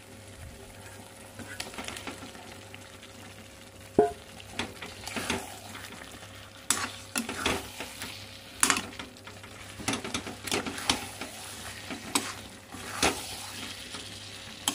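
Metal spatula stirring and scraping through thick masala in a metal kadai, mixing in boiled eggs, over a steady sizzle of frying gravy. Irregular scrapes and knocks of the spatula on the pan, the sharpest a single knock about four seconds in.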